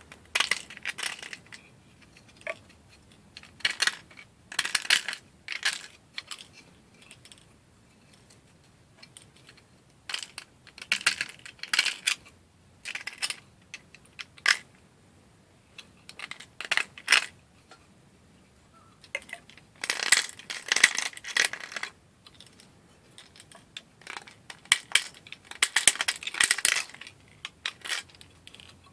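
Hand scraping and picking at a PLA 3D print to clean off support material and rough spots: irregular clusters of short rasping scrapes and small plastic clicks, with brief pauses between them.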